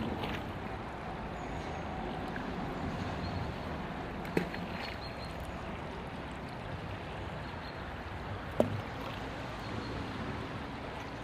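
Riverside field recording: a steady rush of flowing river water, with a sharp knock about four seconds in and another about eight and a half seconds in.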